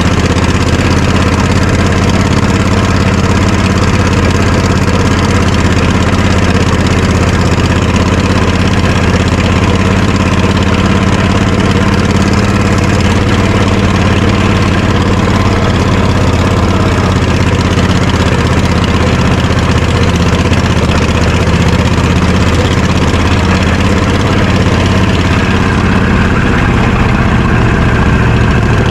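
Off-road lawnmower's engine idling steadily close by, with no revving.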